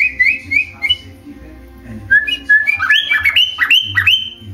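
Pet bird whistling: a quick run of short chirped notes, then after a pause about a second long, a faster series of sharp, upward-sweeping whistled calls. The calls are agitated, aimed at its own reflection in a mirror.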